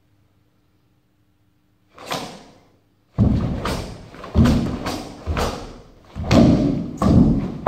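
Shotokan karate kata (Unsu) being performed: bare feet stamping on a wooden sports-hall floor and the cotton gi snapping with fast strikes. One softer impact comes about two seconds in, then a quick run of about seven sharp, loud thuds and snaps that echo in the hall.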